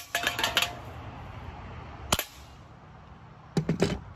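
Crosman PSM45 BB pistols being fired at targets: sharp cracks and clinks of shots and hits, a quick cluster of several in the first half second, a single one about two seconds in, and a few more near the end.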